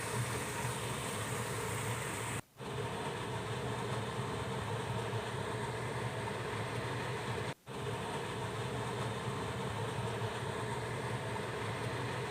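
Steady machine hum with hiss, broken twice by brief gaps where the recording cuts.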